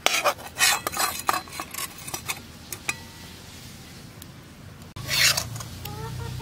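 A metal spatula scraping and clattering against a cooking pan as fish curry is scooped out. It comes as a quick run of scrapes over the first couple of seconds, a few light knocks, then one more scrape about five seconds in.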